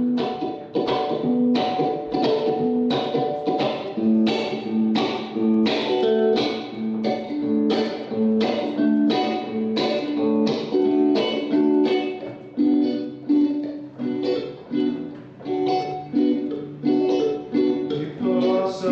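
Acoustic guitar strummed in a steady rhythm of about two strums a second, playing an instrumental passage.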